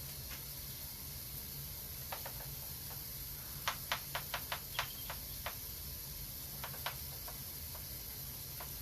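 Steady hiss of a water mist spraying. A run of short, sharp clicks or taps comes in the middle, most of them packed close together.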